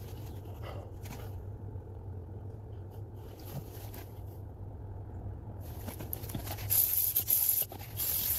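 Aerosol can of penetrating oil spraying onto a seized suspension ball joint bearing: two hissing bursts near the end, the first about a second long, over a steady low hum.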